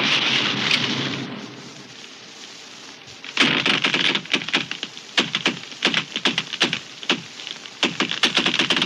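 Wood cracking and splintering as a tree breaks, in a rapid, irregular run of sharp snaps. It starts about three seconds in, after a noisy rush fades away.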